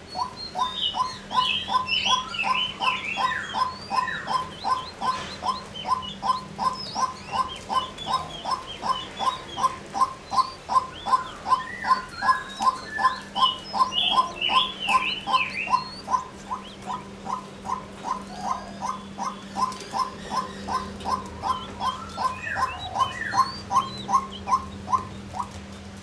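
Female white-breasted waterhen calling: one short, even note repeated about three times a second without a break. Higher twittering chirps come in bursts above it.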